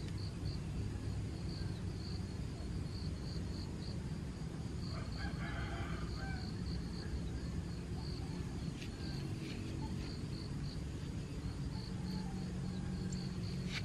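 Rural morning outdoor sound: a rooster crows faintly about five seconds in, over a steady low rumble and an insect chirping high and evenly, about three times a second.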